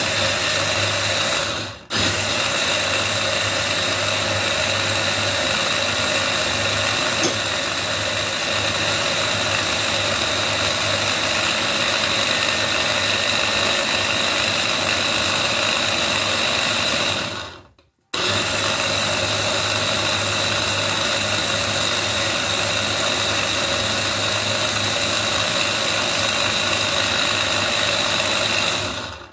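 Electric mini chopper's motor running steadily, pureeing apples with water. It cuts out for an instant about two seconds in and again briefly a little past halfway, then runs on.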